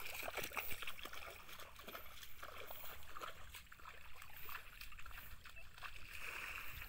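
Footsteps wading through shallow floodwater, splashing irregularly with each step.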